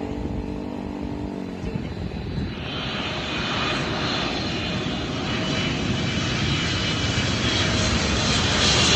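Jet airliner engines growing steadily louder as the aircraft approaches, with a high whine coming in about two and a half seconds in. A lower hum fades out in the first two seconds.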